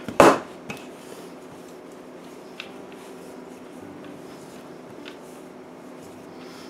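Wooden rolling pin rolling out seitan dough on a floured counter: faint rubbing over a steady low hum, with a short loud thump just after the start and a few light taps.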